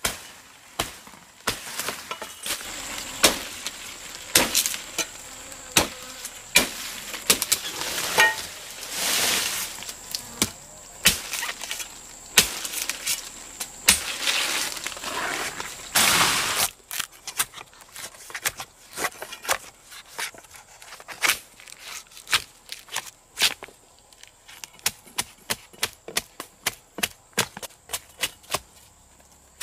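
Repeated chopping with a blade, sharp blows with rustling in between at first, then settling into a quick, fairly even run of about three strikes a second in the second half.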